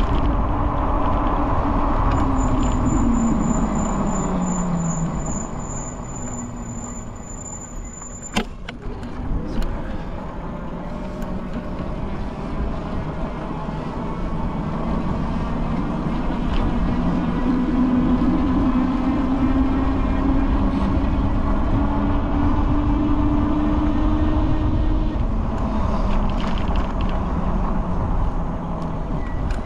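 Road traffic: motor vehicles passing. The engine note of one falls in pitch as it goes by a few seconds in, and another rises and holds steady in the second half.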